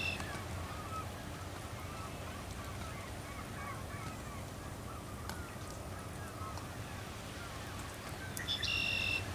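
A flock of waterbirds calling continuously, many small overlapping yelps and chirps, with one louder, flat, drawn-out call near the end, over a steady low rumble.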